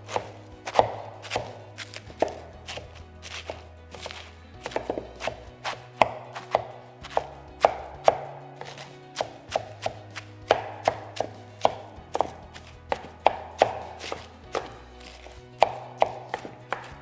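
A handled chopping blade striking down repeatedly into a wooden salad bowl, cutting through lettuce, tomatoes and peppers in irregular runs of about two to three strokes a second. Soft background music plays underneath.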